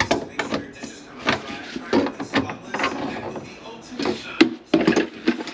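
Pliers clicking and knocking against the metal slip nut of a sink P-trap as it is gripped and worked loose, with a sharp knock near the end.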